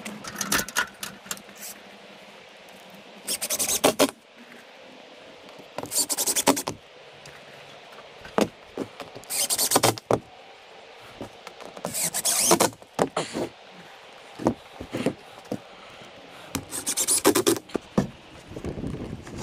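Cordless drill driving exterior screws into OSB roof sheathing: a series of short grinding bursts, each under a second and a few seconds apart, with a few single knocks on the boards in between.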